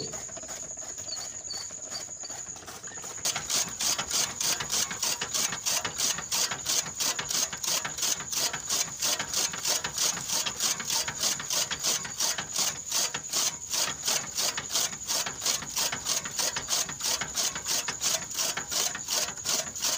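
Bull-driven toka chaff cutter chopping green fodder into small pieces, its flywheel blades cutting in a fast, even rhythm of sharp chopping strokes. The chopping starts about three seconds in.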